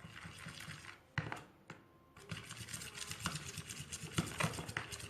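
A utensil stirring a thick glue-based slime mixture in a container, with rapid scraping and clicking against the sides and a brief pause about two seconds in.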